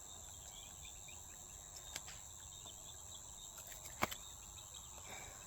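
Steady high-pitched chirring of crickets or other night insects. Two short clicks cut through it, a faint one about two seconds in and a sharper one about four seconds in.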